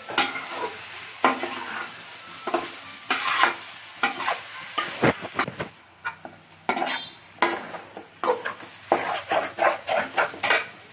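Flat metal spatula scraping and knocking around a metal kadai as potato cubes in masala are stirred and turned, in irregular strokes about one or two a second, over a frying sizzle that dies down about halfway through.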